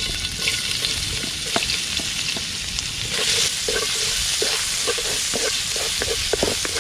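Minced ginger sizzling in hot oil in a steel wok, stirred with a wooden spatula that scrapes and taps against the pan. The stirring strokes come more often from about three seconds in.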